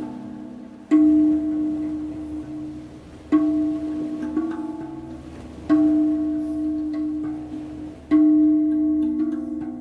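Meinl Sonic Energy Octave steel tongue drum played as a slow melody: single notes struck about every two and a half seconds, four in all, each ringing on and fading slowly, with a faint low hum underneath.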